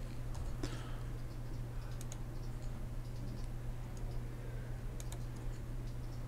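Faint scattered clicks of a computer mouse placing points, a few single clicks and a couple of quick pairs, over a steady low electrical hum.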